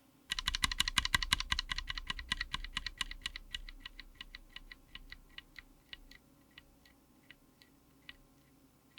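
Typing on a mechanical keyboard fitted with Ajazz Blue Sky tactile switches, on an FR4 plate in an aluminium case. A quick run of keystrokes starts a moment in, then slows and fades into sparse, evenly spaced single key presses.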